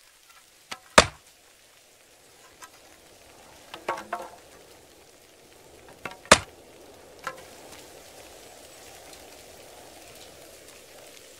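Axe chopping into wood: two sharp, loud chops, about a second in and just past the middle, with a few lighter knocks between them. In the second half a steady storm hiss rises and keeps building.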